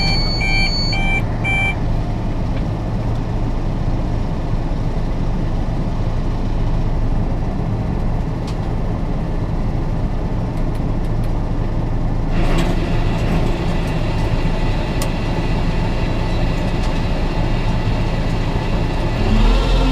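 A tractor engine drives a trailed Grimme potato harvester, heard steadily from inside the cab. A few short electronic warning beeps sound in the first two seconds. About twelve seconds in, the sound grows brighter and busier as more of the machinery runs.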